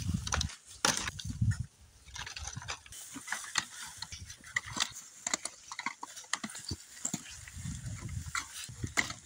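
Dead wooden branches knocking and clattering as they are dropped and dragged onto a woodpile, mixed with crackling rustle of dry grass, and a few dull low thuds.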